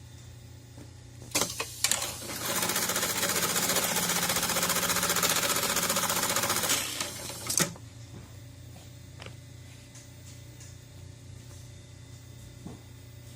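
JUKI AMS-210E industrial pattern sewing machine running a sewing cycle. A couple of sharp clicks come first, then about five seconds of fast, even stitching, which ends with a sharp knock. A low machine hum runs underneath throughout.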